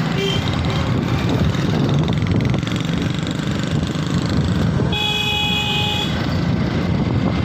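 Steady motorcycle and road traffic noise heard while riding, with a vehicle horn honking briefly at the start and again for about a second about five seconds in.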